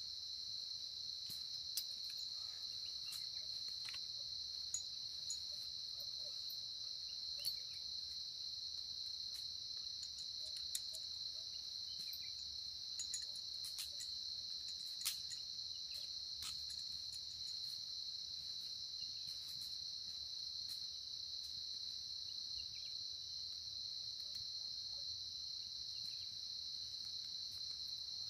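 Steady, unbroken high-pitched chorus of crickets, with a few scattered sharp clicks over the first half.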